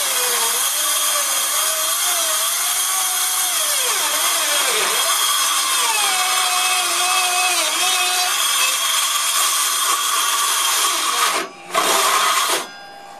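Cordless circular saw cutting plywood. The motor's whine sags and recovers as the blade loads up in the cut. Near the end it cuts out, starts again briefly, then stops; the saw's battery is running down.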